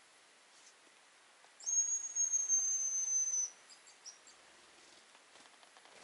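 Hazel grouse call: one long, thin, high whistle lasting nearly two seconds, falling slightly at the end, followed about a second later by a few short high notes.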